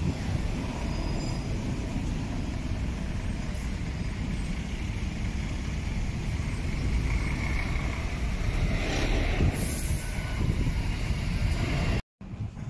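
Busy road traffic rumbling past: cars, a double-decker bus and a lorry, with a short hiss of a heavy vehicle's air brakes about nine and a half seconds in. The sound cuts off abruptly near the end.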